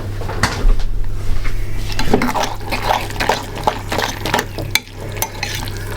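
Egg and milk quiche filling being beaten in a bowl, the utensil clicking quickly and repeatedly against the bowl, the strokes coming thicker from about two seconds in.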